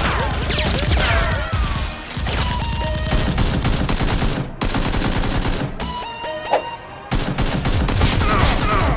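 Rapid bursts of gunfire sound effects, added in the edit to Nerf blasters firing, with falling whistling sweeps like ricochets in the first two seconds. The shooting eases off briefly a little after the middle.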